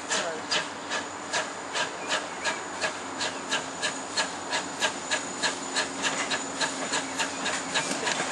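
Steam locomotive exhaust beats: an even chuffing of about three beats a second that quickens slightly toward the end.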